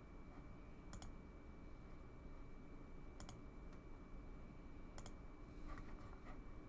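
Computer mouse clicks over a quiet room hum. Three sharp clicks come about two seconds apart, then two fainter ones near the end.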